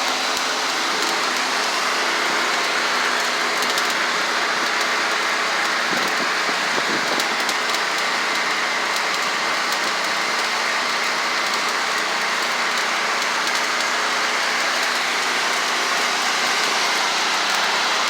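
Stick-welding arc burning a 7018 electrode, a steady crackling hiss that holds unbroken throughout.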